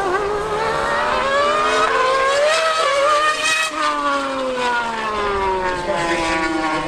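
High-revving racing engine at full song, its pitch climbing for about three seconds and then falling away steadily to the end.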